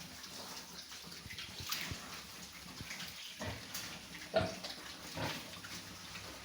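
Pigs in a pen, with wet sloshing and scattered knocks, and a brief pig call about four seconds in.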